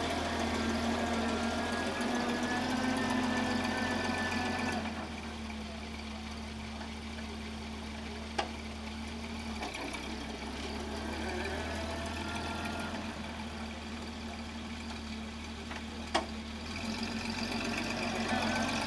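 1943 Dodge WC52 Weapons Carrier's freshly rebuilt flathead straight-six running steadily at low speed as the bare chassis drives slowly. It drops quieter about five seconds in and comes up again near the end, with two sharp clicks, one about halfway through and one near the end.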